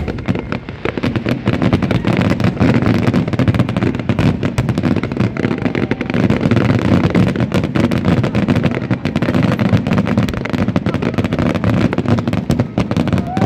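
Aerial fireworks shells bursting in a dense, unbroken barrage: booms and crackles packed closely together, loud and without let-up.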